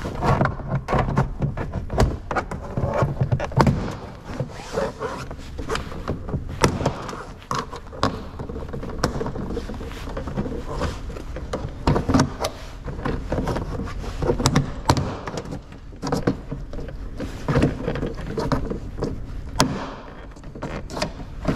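Citroën C4 rear door trim panel being pried off with a plastic trim tool: irregular clicks, knocks and thuds as the panel's plastic retaining clips pop loose and the panel is handled.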